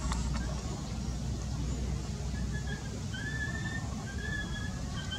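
Outdoor ambience with a steady low rumble, and from about halfway through a run of four or five short, thin whistled calls, each about half a second long.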